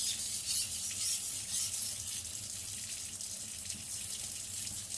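Steel knife blade being stroked back and forth on a wet whetstone, a gritty hissing scrape with each pass. The strokes are light, with reduced pressure, to work a folded-over edge.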